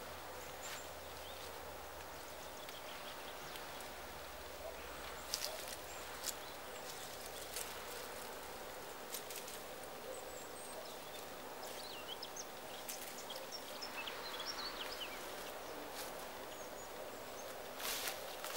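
Tomato plants rustling, with scattered short snaps and clicks as tomatoes are picked off the vine by hand, over quiet outdoor ambience. Faint bird chirps come in the middle.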